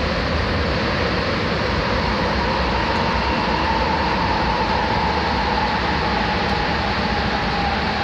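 Sapporo Municipal Subway Toho Line train running between stations, heard from inside the car: a steady rubber-tyred running rumble with a motor whine that drifts slightly lower in pitch toward the end.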